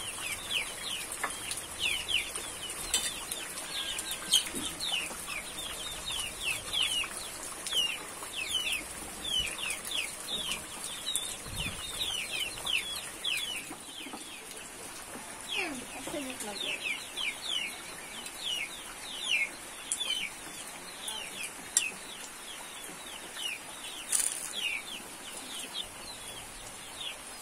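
Chicks peeping over and over, many short high chirps that fall in pitch, with a few lower clucking calls about two thirds through. A steady high hiss sits behind them, and a few light clinks, like a spoon on a plate, come now and then.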